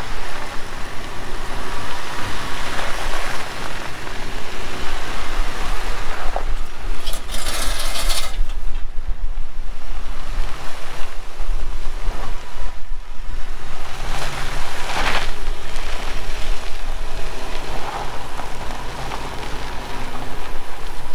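Jeep crawling down a steep off-camber dirt trail, its engine and tyres heard under heavy wind noise on the microphone. A brief loud rush of hiss about seven seconds in.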